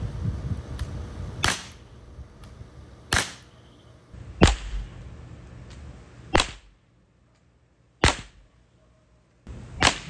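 A CO2-powered .50 calibre revolver firing steel-pointed darts: about six sharp pops, irregularly spaced one to two seconds apart.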